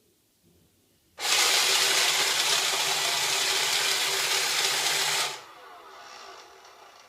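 Roomba Discovery robot vacuum's vacuum motor starting abruptly about a second in, running loud with a steady hum, then cutting off about four seconds later to a fainter whir, during what the owner takes to be the Roomba's 'circle dance' fault behaviour.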